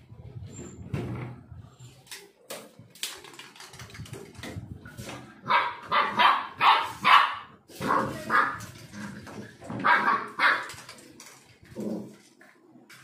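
Black Labrador puppy barking: a run of short, quick barks from about halfway through, then a few more near the end.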